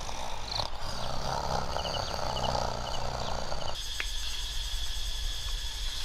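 Rainforest insect chorus: a steady buzzing hum that changes abruptly about four seconds in to a steady high-pitched insect drone.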